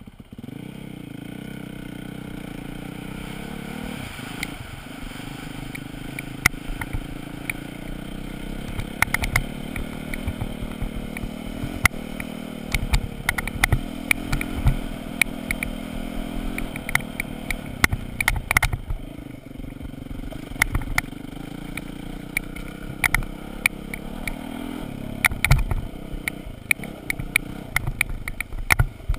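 Enduro dirt bike engine running under way, its pitch rising and falling as the throttle is worked over rough ground. Frequent sharp knocks and rattles sound through it.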